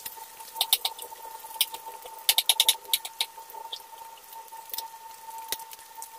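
Dried fish frying in oil in a nonstick pan: the oil crackling and spitting in quick irregular clusters of sharp pops, busiest about a second in and again around the middle, then thinning out.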